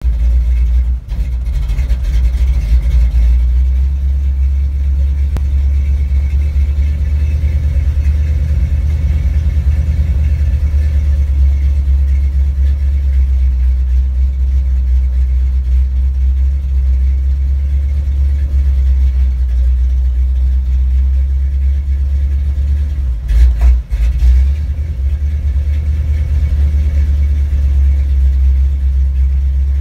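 Big-block V8 engine of a Ford bumpside pickup running steadily at a low speed, heard from inside the cab as a deep, even rumble. About 23 seconds in it surges and then briefly dips before settling back, the kind of misbehaviour the owner calls acting up.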